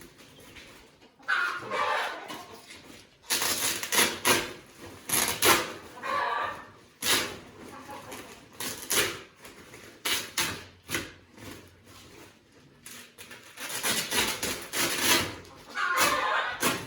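Chickens clucking, mixed with repeated knocks and rustles, which are the loudest sounds.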